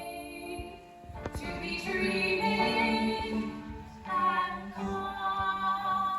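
A female voice singing a song with long held notes over musical accompaniment.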